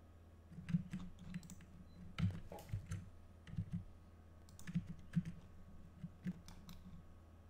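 Computer keyboard keys and mouse buttons clicking in short, irregular taps as someone works at a desk, over a faint steady low hum.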